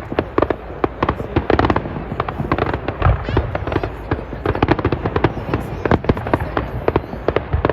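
Fireworks going off in a dense, continuous barrage: rapid bangs and crackles several times a second, with a deeper boom about three seconds in.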